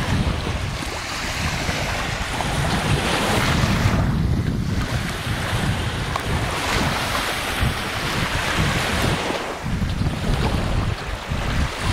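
Small Baltic Sea waves washing onto a sandy beach, the surf noise swelling and easing every few seconds, with wind buffeting the microphone.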